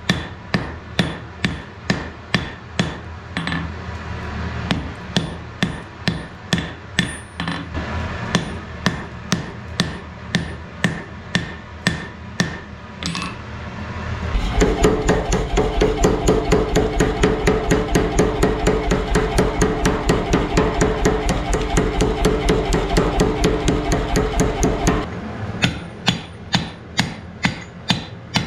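Hand hammer striking hot wrought iron on a steel anvil, in a steady rhythm of about two to three blows a second. For about ten seconds in the middle the blows come much faster and closer together, over a steady hum.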